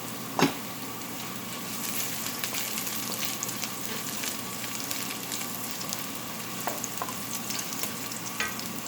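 Sliced ginger frying in hot oil in a pan: a steady sizzle with small crackles throughout, and one sharp knock about half a second in.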